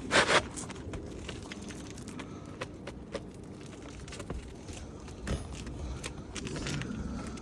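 Roofing work on asphalt shingles: a loud, short scrape at the start, then scattered light clicks and taps as the new shingle is worked into place.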